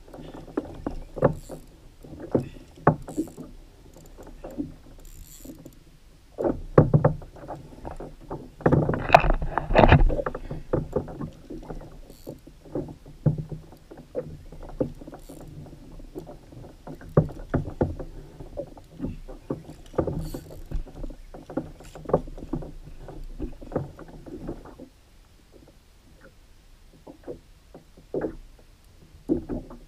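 Irregular knocks and clicks from the rod, reel and plastic hull of a Hobie Outback fishing kayak while a fish is fought on a bent rod, with a louder, busier stretch about nine to ten seconds in.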